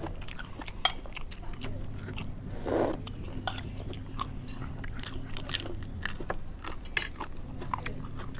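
Close-up sounds of people eating crunchy food (spicy Thai seafood salad): repeated crisp bites and crunches with chewing, and a brief louder mouth sound about three seconds in. A faint steady low hum runs underneath.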